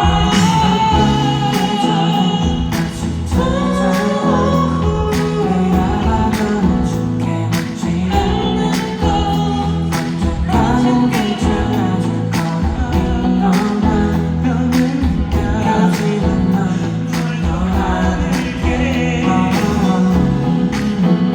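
Live pop ballad: singing over a band, with a steady drum beat.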